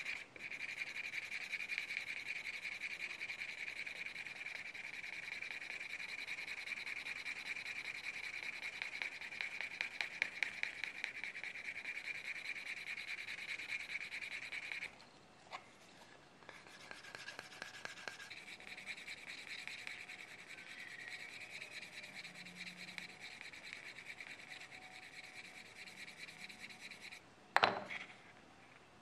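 Wooden edge burnisher rubbed rapidly back and forth along the water-dampened edge of vegetable-tanned leather, a fast scratchy friction sound. It stops briefly about halfway, then goes on more quietly. A sharp knock comes near the end.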